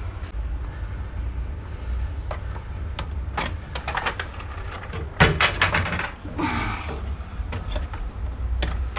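Scattered clicks and knocks of parts being handled, with one loud knock about five seconds in, over a steady low rumble.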